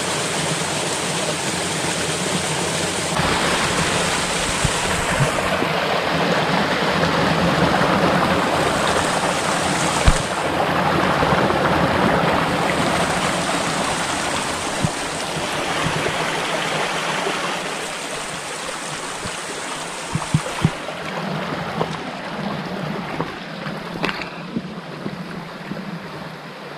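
Steady rushing of water from a forest waterfall, swelling and easing a little. A high hiss comes and goes several times over it, and a few sharp clicks sound near the end.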